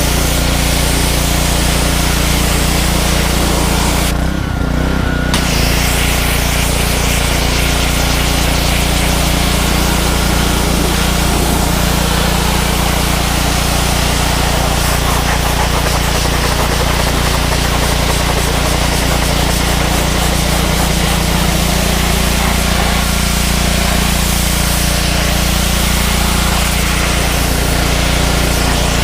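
Pressure washer running steadily, its motor droning under the hiss of the water jet from a green-tip nozzle. The spray cuts out for about a second near the start, then comes back.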